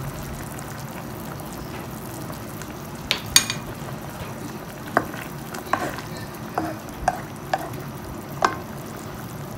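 Fish broth simmering in a pan: a steady bubbling hiss with scattered short pops and clicks.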